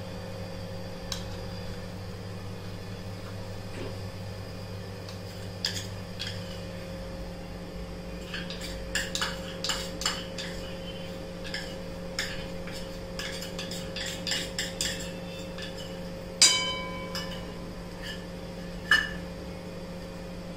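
Steel utensils clinking and knocking against a steel kadhai as jaggery is added from a small steel bowl, over a steady low hum. Scattered clinks build to a quick run in the middle, with a loud ringing clank about three-quarters of the way through.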